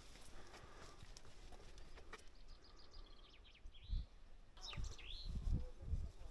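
Small birds calling outdoors: a quick run of short chirps about three seconds in, then a couple of swooping whistled notes near four and five seconds. Low rumbling thumps come near four seconds and again between five and six seconds and are the loudest sounds.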